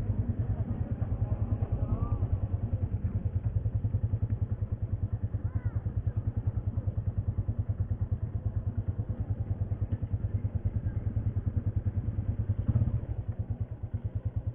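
Motorcycle engine running at low revs as the bike rolls slowly along, a fast, steady low pulsing beat that swells briefly near the end.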